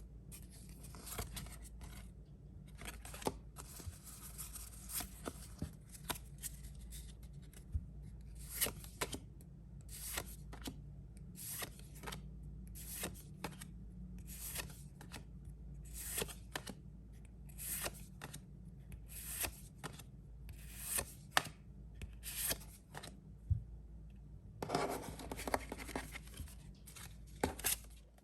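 Pokémon trading cards being handled: short crisp swishes about once a second as cards are slid off a stack one by one, with a longer rustle near the end.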